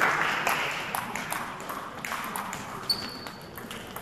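Scattered applause from a small crowd fading away. About three seconds in, a table tennis ball strikes the bat or table with one sharp click and a brief high ping.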